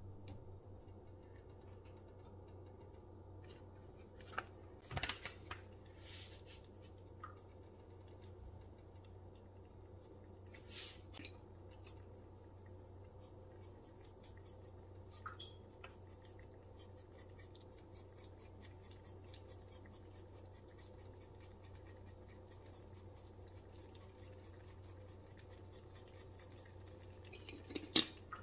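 Faint steady sizzling of zucchini slices frying in a stainless steel pan, with a few light taps and clicks as the slices are handled and seasoned, the loudest near the end.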